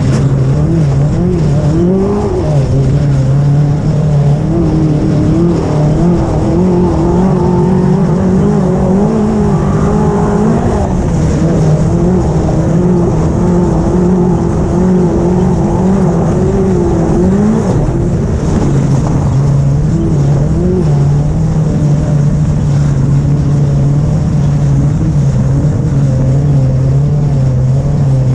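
Off-road race buggy's engine running hard, heard from on board, its pitch wavering with the throttle and dropping briefly about two seconds in and again near eighteen seconds. A constant low rumble from the car running over the rough dirt track lies under it.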